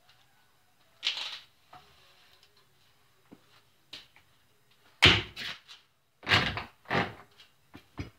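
Several sudden knocks and clunks over a faint steady hum. There is one about a second in, then the loudest cluster from about five to seven seconds, and a last short knock near the end.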